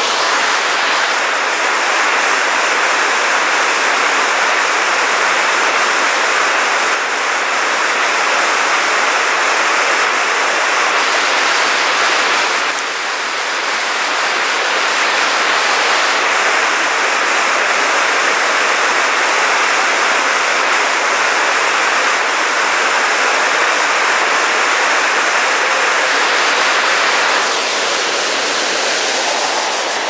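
The East Lyn River rushing down a small waterfall and over boulders: a loud, steady rush of falling water. It dips briefly about halfway through and eases a little near the end.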